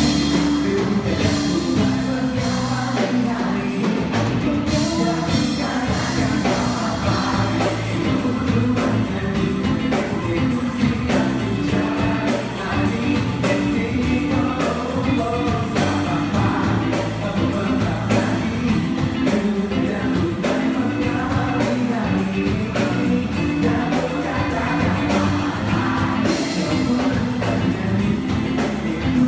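Live band music: a pop-rock song played with drums and bass, with a singer's voice over it.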